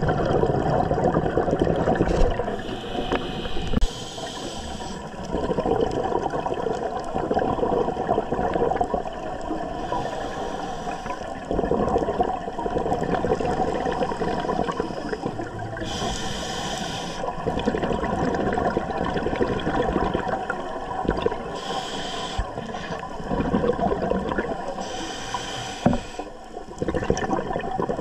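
Scuba diver breathing through a regulator underwater: short hissing inhales every several seconds, each followed by a long gurgle of exhaled bubbles.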